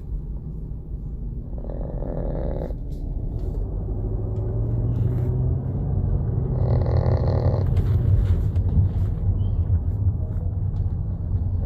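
Small dog snoring in its sleep, a snore about every five seconds over a low, steady rumble.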